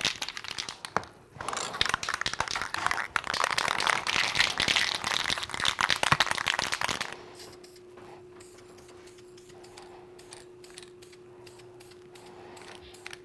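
Two aerosol spray paint cans shaken hard, their mixing balls rattling rapidly inside. The rattling stops about seven seconds in, leaving a faint steady hum.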